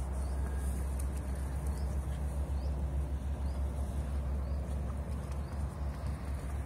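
Low rumble of wind and handling noise on a phone microphone carried at a run, over irregular rustling footsteps on dry pine needles.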